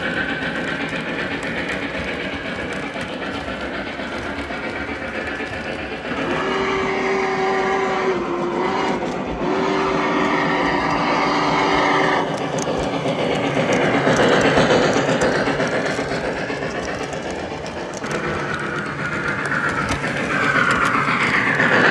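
Model trains running on the layout track: a steady rumble of wheels and motors on the rails. From about six seconds in, a held whistle tone sounds for about six seconds, broken once in the middle, and near the end a train grows louder as it passes close by.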